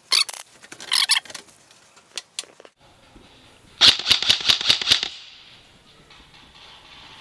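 Airsoft gun shots: scattered sharp snaps near the start and about a second in, then a quick, evenly spaced run of about seven snaps around the middle.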